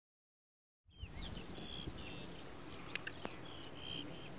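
Summer meadow ambience that cuts in about a second in: insects chirping in an even, repeating pulse, about three a second, with short falling bird calls over a low background rumble.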